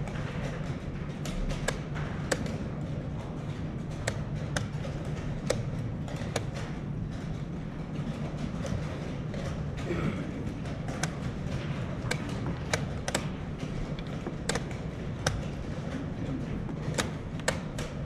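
Wooden chess pieces set down and chess-clock buttons slapped in quick, irregular succession during a blitz time scramble: sharp taps and knocks over a steady low hum of the playing hall.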